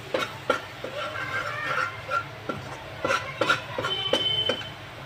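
A steel spoon stirring and scraping a flour-and-butter roux in a stainless-steel kadhai, with irregular metal clinks and scrapes against the pan several times a second.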